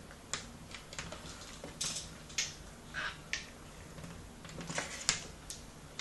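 Irregular sharp clicks and short scratchy taps, one or two a second, from two white cockatoos on a window ledge, their beaks and feet working against the ledge and each other.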